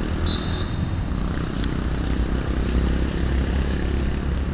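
Steady low outdoor rumble on the open pitch, with a faint thin high tone lasting under a second near the start.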